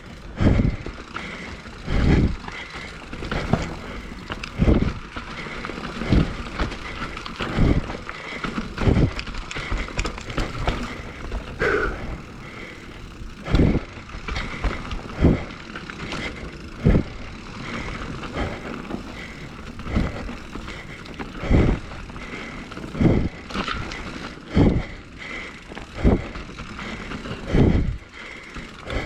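A mountain biker's heavy, hard breathing close to the microphone, a loud puff about every second and a half, over the faint rattle of the bike and trail.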